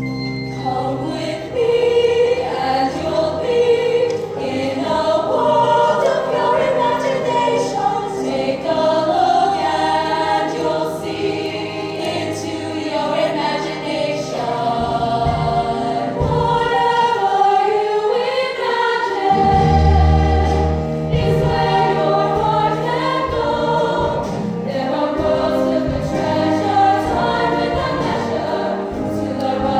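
Women's show choir singing on stage, many voices together, amplified through stage microphones.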